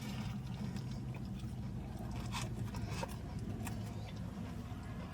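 A person biting into and chewing a cheeseburger, with a few faint crunches and clicks scattered through, over a steady low hum.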